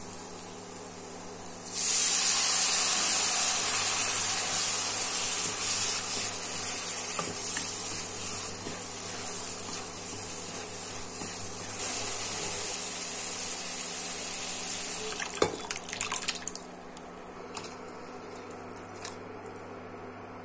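Liquid poured into a hot pan of oil-fried spices, onions and garlic, hissing and sizzling loudly as it hits, starting suddenly and then slowly dying down. A few sharp clicks come near the end of the sizzle.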